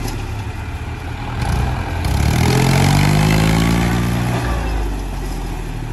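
Diesel engines of two Mahindra tractors working under heavy load to pull a bogged tractor and loaded trolley out of mud. One engine revs up about two seconds in, holds high and louder for a couple of seconds, then eases back.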